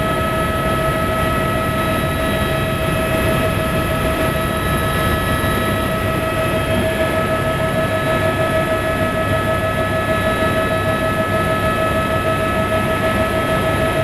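Helicopter in steady cruising flight, heard inside the cabin: a constant high whine over a dense low rumble, with a slight fast flutter.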